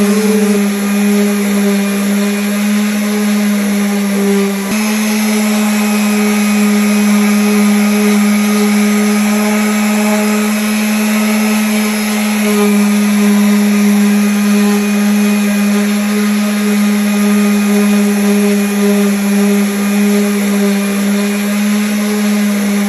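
Electric sander running on wood: a steady motor hum with the gritty hiss of the sandpaper against the surface, changing slightly about five seconds in.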